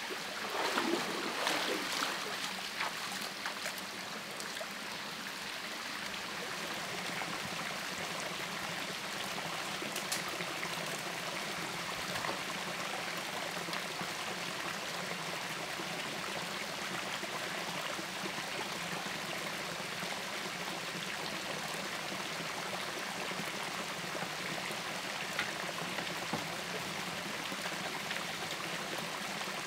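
Small waterfall and stream running steadily. In the first few seconds there are splashes of someone wading through knee-deep water.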